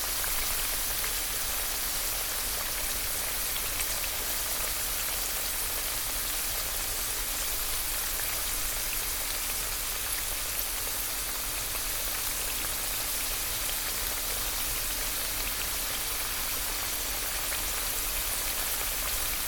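Hot oil sizzling steadily as food fries, a dense hiss sprinkled with fine crackles and pops.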